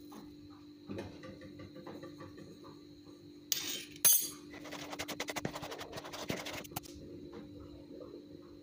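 Kitchen utensils clinking: two sharp knocks about three and a half seconds in, then about two seconds of quick rattling clicks.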